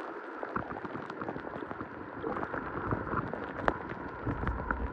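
River water heard through a submerged camera: a muffled, steady rushing with many small clicks and ticks scattered through it.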